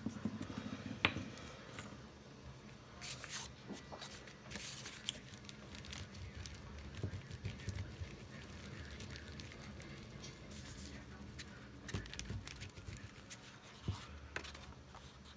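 Paper and card being handled on a tabletop: soft rustling and scattered light taps as sheets and a brown paper bag are slid about and laid down.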